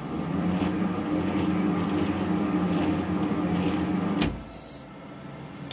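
Warco WM250V lathe running slowly under power feed on a thread-cutting pass, giving a steady hum with several held tones from its drive and change gears. About four seconds in there is a sharp click, and the running sound drops away as the machine is stopped.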